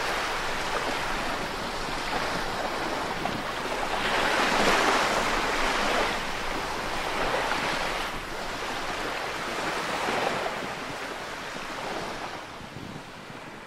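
Waves washing ashore, swelling and ebbing every couple of seconds, with wind on the microphone. The sound fades near the end.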